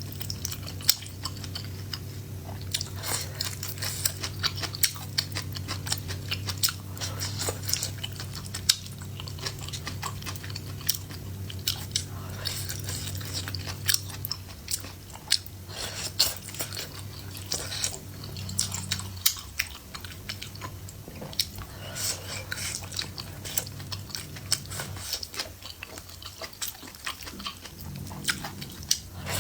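Close-miked chewing and biting of food, with many small sharp clicks of the mouth and teeth throughout.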